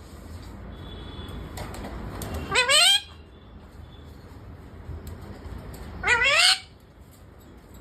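Parrot giving two loud, rising squawks, each about half a second long and roughly three and a half seconds apart.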